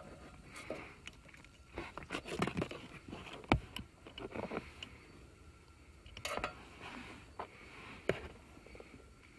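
Hands working at a car's wiring harness and plastic ECU connector under the dashboard: scattered clicks, scrapes and rustling, with a sharp click about three and a half seconds in and another near the end.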